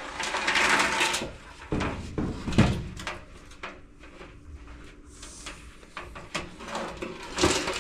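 Workshop handling noise: rustling and rummaging through parts, with scattered clicks and a few knocks, the loudest about two and a half seconds in.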